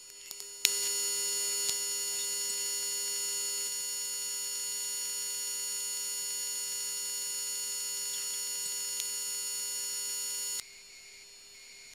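Steady hum of many fixed tones inside an aerial refuelling tanker in flight. It starts abruptly just after the start and cuts off abruptly near the end.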